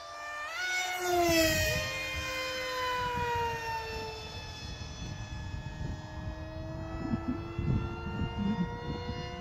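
RC model jets' fans whining overhead in flight. The pitch rises sharply as one passes close, about a second in, then falls slowly as it draws away, while a second, steadier whine carries on beneath. A gusty low rumble runs underneath.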